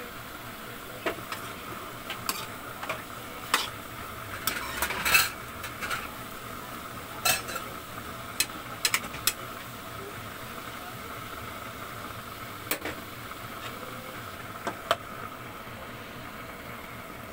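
A spatula stirring vegetables and chicken in a metal pan, scraping and clinking against the pan in irregular knocks over a steady low sizzle. The clinks come thickest in the first half, with a few more near the end as the lid goes back on.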